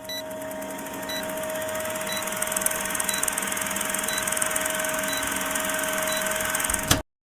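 Electronic intro sound: a steady hum of two tones over a hiss, with a short high beep about once a second. It swells in over the first second and cuts off suddenly near the end.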